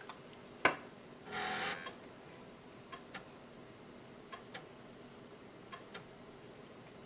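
Replica Commodore 1581 3.5-inch floppy drive starting a disk copy: a click, a short buzz, then faint paired ticks about every second and a half as the head steps from track to track while writing.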